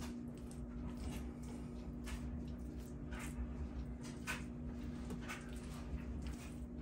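Soft wet squishing and smearing of a bare hand spreading Sculptamold paste over a plaster-cloth tunnel form and scooping more from a metal coffee can, with faint scrapes every second or so over a steady low hum.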